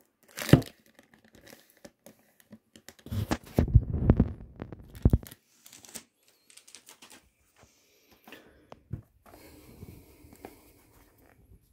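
Clear plastic film being torn and pulled off a perfume box, crinkling. The loudest tearing and rustling comes about three to five seconds in, followed by lighter crackles and clicks as the box and film are handled.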